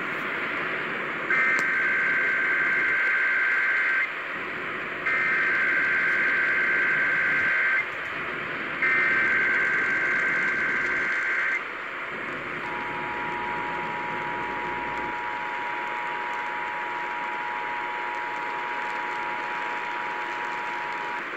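Emergency Alert System test over FM radio: three bursts of SAME header data, a harsh two-pitch digital warble about two and a half seconds each with a second's pause between, then the EAS attention signal, a steady two-tone (853 and 960 Hz) beep held for about nine seconds, all over radio hiss. The header and tone open a Required Monthly Test.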